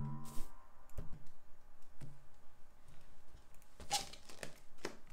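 A rubber balloon bumping against the phone at the start, then scattered light taps and knocks as it is batted about, with a sharper knock near the end.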